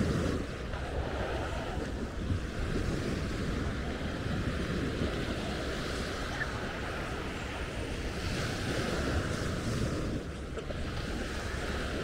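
Small waves washing onto a sand beach, with wind rumbling on the microphone.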